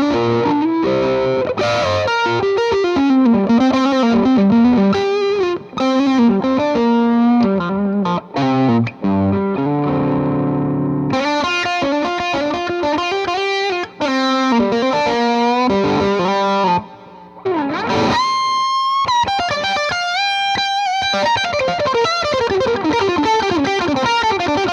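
Les Paul electric guitar played through distortion: quick melodic runs of single notes, a held low chord about ten seconds in, and a note bent upward around eighteen seconds.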